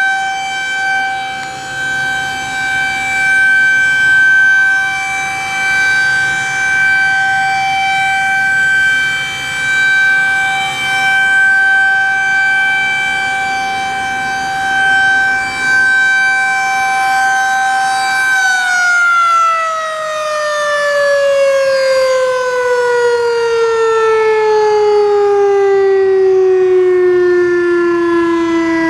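Federal Signal 2001-SRN outdoor warning siren sounding a steady single tone, swelling and dipping in loudness as its head rotates. About two-thirds of the way through, the siren winds down, its pitch falling steadily to a low moan as the rotor slows at the end of the test.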